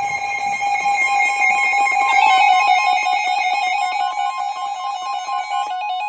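Emergency Alert System attention tones: steady electronic alert tones, joined about two seconds in by a fast, repeating pattern of higher tones. The tones signal that an emergency warning is about to be read.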